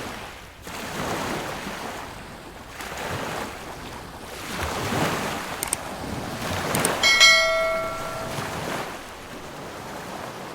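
Sea waves washing onto a beach, swelling and fading every couple of seconds. About seven seconds in, a bell rings once, a clear tone that rings on for about a second and a half.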